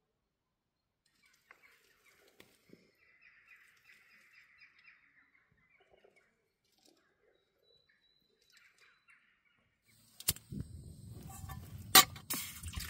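Faint bird calls for most of the stretch. About ten seconds in, a click and a portable gas canister stove's burner lights and runs with a steady rushing hiss, then a sharp metal clank as a small pot is set on it.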